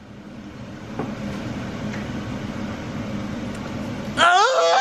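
A steady low rumble with a faint knock about a second in, then near the end a young child suddenly starts crying loudly, the pitch rising and then holding.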